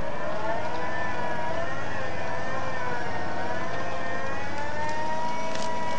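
Electric winch on a Toyota Land Cruiser whining under load as it pulls the truck through a muddy rut. The whine wavers slowly up and down in pitch with the changing strain, over the low, steady running of the diesel engine.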